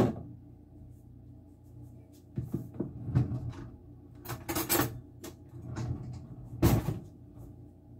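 Plastic parts of a juicer being taken apart and cleaned out: scattered clicks, knocks and rattles, the loudest clunk about two-thirds of the way in, over a faint steady low hum.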